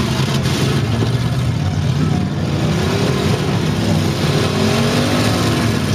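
Several demolition derby stock cars' engines running and revving at once, their pitches rising and falling over one another, with a couple of faint knocks.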